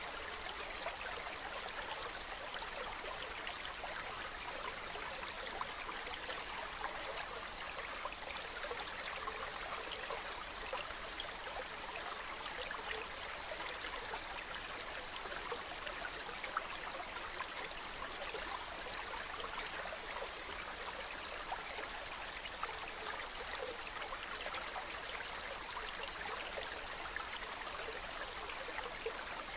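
Stream water running steadily, an even rushing hiss with small splashes and trickles scattered through it.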